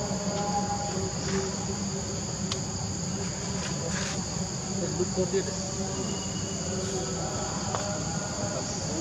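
Steady, high-pitched insect chorus drones continuously, with a few short taps and clicks about halfway through.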